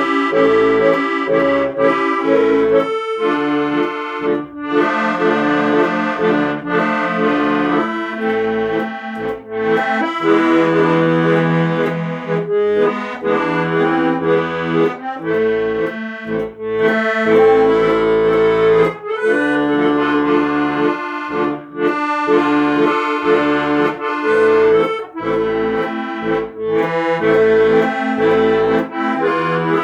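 Instrumental music: a reedy melody over held chords and bass notes that change every second or so.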